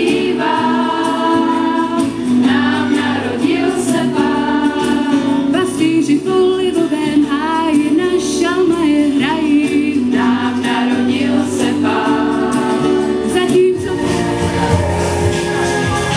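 A choir of young voices singing in unison through a stage PA, over sustained instrumental accompaniment. Near the end the voices stop and the backing carries on with a heavier bass.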